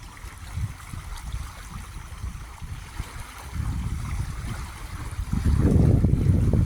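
Lake water lapping under low, gusty wind noise on the microphone; the wind rumble grows much louder about five seconds in.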